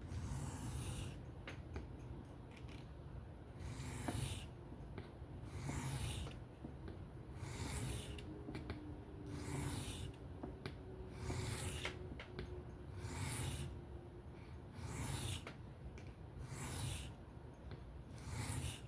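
Knife blade drawn freehand across a whetstone in long strokes, a gritty scraping swish about every two seconds, around ten strokes in all.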